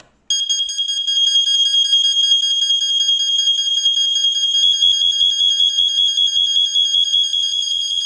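Interconnected AlphaCo model 761 smoke alarms sounding their test alarm: a loud, high-pitched continuous tone with a fast flutter that starts about a quarter second in and holds steady.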